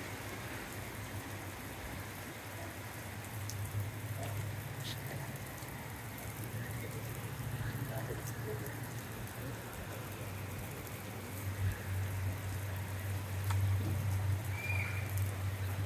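Heavy rain falling on a flat concrete rooftop and its puddles, a steady hiss with a few sharp drop ticks. A low steady hum runs underneath and grows louder in the second half.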